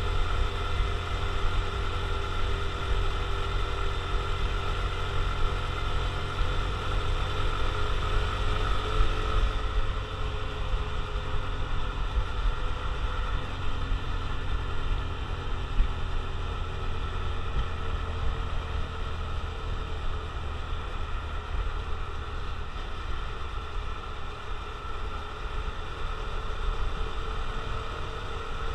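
Honda CT125 Hunter Cub's single-cylinder four-stroke engine running while the bike is ridden. About ten seconds in the engine note eases off, then slowly climbs again near the end.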